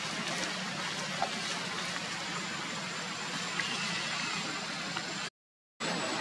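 Steady outdoor background hiss with a few faint clicks, broken by a brief dropout to silence near the end.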